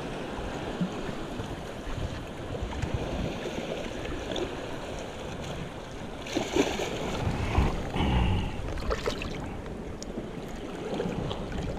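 Sea water lapping at a rock edge with wind on the microphone, and wet squelching and splashing as a freshly caught squid is pulled apart and rinsed by hand, a few louder splashes coming about six to eight seconds in.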